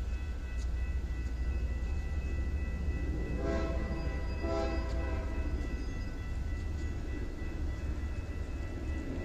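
Locomotive horn sounding two short blasts, about three and a half and four and a half seconds in, over a steady low rumble from the train.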